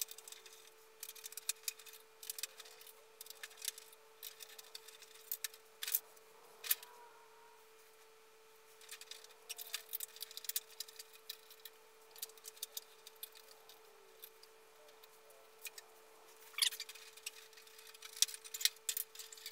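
Hard plastic parts of a 1987 Hasbro G.I. Joe Defiant gantry toy being handled and worked apart by hand, giving scattered small clicks and taps, with a few louder clicks about six seconds in and again near the end. A faint steady hum runs underneath.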